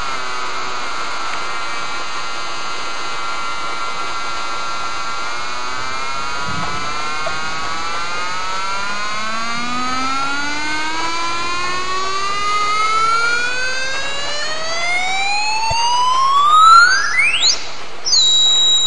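Buzzy square-wave tone from a small 8-ohm speaker driven by a 555 timer oscillator through a transistor. It holds steady at first, then its pitch climbs, slowly and then faster, sweeping up into a thin high whistle near the end as the oscillator frequency rises toward the edge of hearing.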